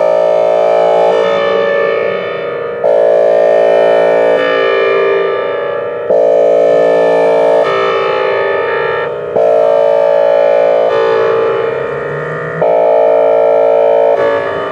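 Whelen Vortex R4 electronic outdoor warning siren sounding its Hi-Lo signal: two electronic tones alternating in steps about every one and a half seconds, loud and close.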